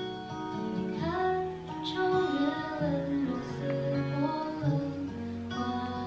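Background music: a song with a woman singing over acoustic guitar, the voice coming in about a second in.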